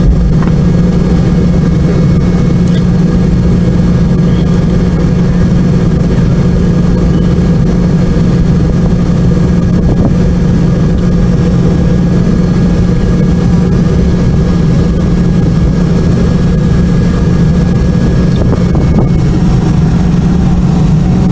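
Cabin noise in a Boeing 717 taxiing before takeoff: its rear-mounted Rolls-Royce BR715 jet engines running at low power, a loud steady roar with a strong low drone.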